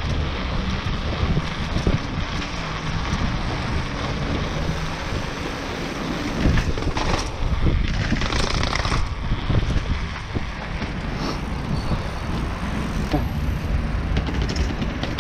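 Mountain bike rolling fast over cobblestones, the tyres and frame rattling, with wind buffeting the microphone. Partway through comes a run of sharp knocks as it drops down a flight of concrete steps.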